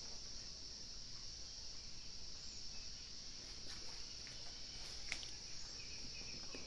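Faint ambient sound: a steady high insect drone, a few soft clicks from a small dog eating raw meat and bone out of a stainless steel bowl, and a run of quick chirps, about three a second, starting near the end.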